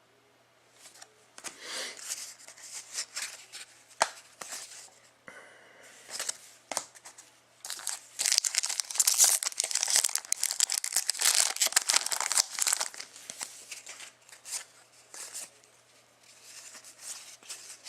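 A trading-card pack wrapper being torn open and crinkled by hand, with cards being handled. The tearing and crinkling are loudest and most continuous through the middle of the stretch.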